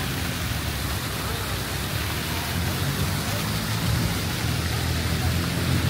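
City street ambience: a steady hiss with a low engine-like hum that grows stronger from about halfway through.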